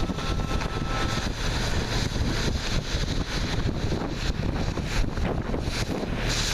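Wind buffeting the microphone: a steady, rushing low rumble with rapid flutter.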